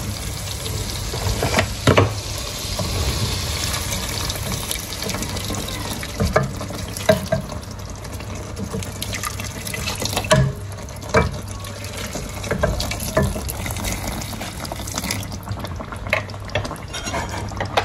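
Water poured from a metal jug into a pot of spiced cauliflower curry for a few seconds, followed by several sharp knocks of a wooden spoon against the aluminium pot.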